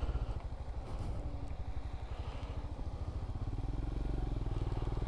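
Royal Enfield Scram 411's air-cooled single-cylinder engine running at low revs with an even pulsing beat, its pitch rising gently over the second half as it picks up revs.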